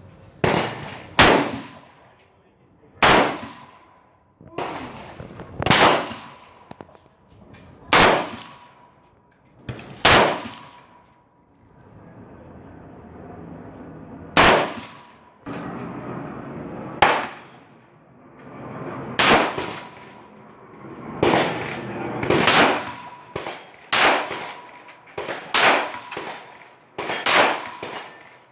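Smith & Wesson AR-15 rifle fired round after round, each sharp shot followed by a brief echo. The shots come about two seconds apart at first and faster, some in quick pairs, near the end.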